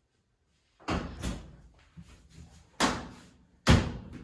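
Front-loading laundry machine door being swung open and shut a few times to test it after its hinges were moved to the other side, each close a sharp knock as it latches, the loudest near the end.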